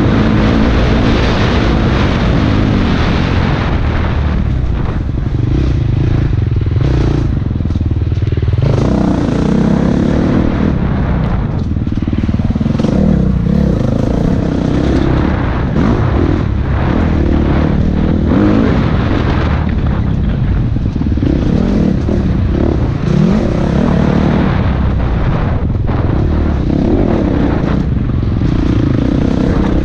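Dirt bike engine revving up and down as the rider works the throttle along a tight trail, the pitch rising and falling every second or two.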